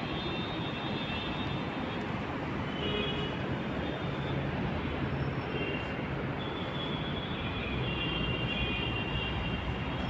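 Steady running noise of a moving vehicle, with thin high whining tones that come and go.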